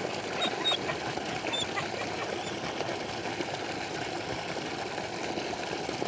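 Steady rushing background noise, with a few faint short high chirps in the first two seconds.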